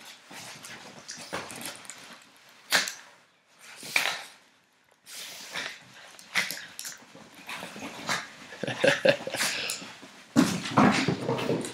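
Puppies play-fighting, a string of short, sharp dog sounds and scuffles, coming thicker and louder in the last few seconds.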